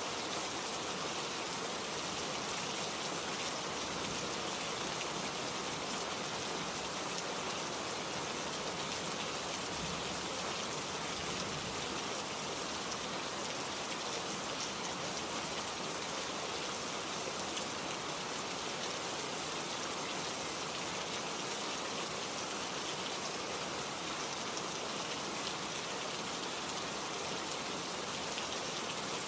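Steady rainfall, an even hiss of drops with faint pattering ticks, never letting up.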